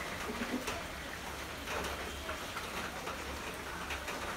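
Steady light rain falling on puddles and wet foliage, with scattered individual drops.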